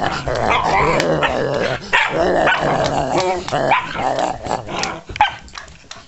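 Dog growling and barking in quick bursts at close range, with a few sharp yips. The sound dies down near the end.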